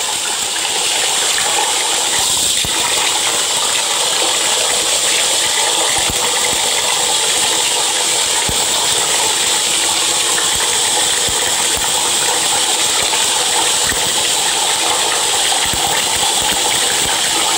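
Tap water running steadily, a continuous even rush.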